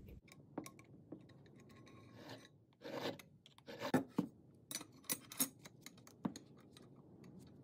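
A few short, irregular strokes of a small hand file on the steel lugs of a Galil rifle bolt, taking down high spots to force-match the bolt. Light metal clicks follow as the bolt is handled and fitted into the receiver.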